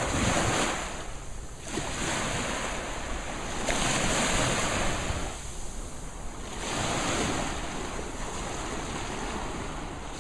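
Small waves washing up on a sandy beach, the surf swelling and fading every few seconds, with wind buffeting the microphone.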